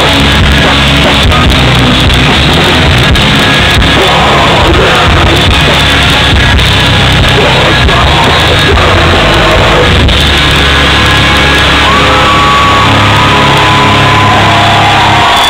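Hardcore band playing live and loud: distorted electric guitars, bass and drums under screamed vocals. Near the end, held chords ring out as shouting voices rise over them.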